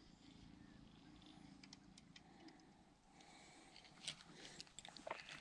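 Near silence. In the second half come a few faint clicks and knocks from hands handling the rod and spinning reel.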